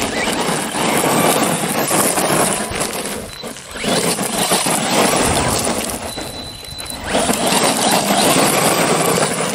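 HSP Wolverine 4x4 brushless RC monster truck running hard on loose gravel: tyres crunching and spraying gravel, swelling and easing in three surges as it is throttled.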